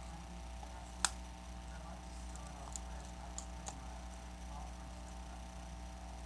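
One sharp click about a second in, then three fainter ticks, from prying the glued screen off a Samsung Galaxy S5, over a steady low electrical hum.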